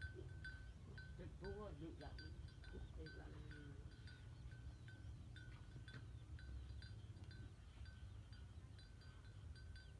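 Faint clinking of bells on walking cattle, a small bell ringing unevenly about twice a second as the cows move, over low wind rumble on the microphone.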